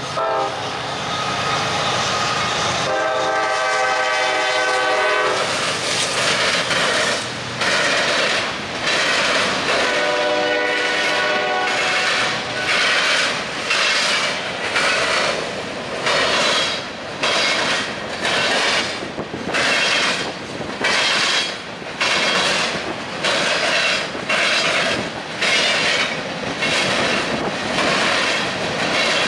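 Freight train passing. The locomotive's air horn sounds a long blast about three seconds in and a shorter one about ten seconds in, over the steady noise of the train. From about twelve seconds on, the wheels clack over rail joints in a steady beat of roughly one a second.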